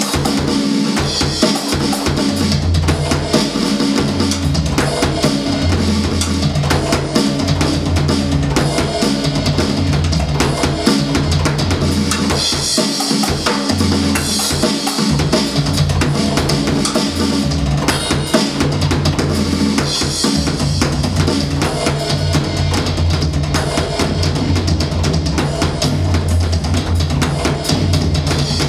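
Roland V-Drums electronic drum kit played fast in a solo: rapid bass drum, snare and tom strikes, with cymbal crashes in several stretches.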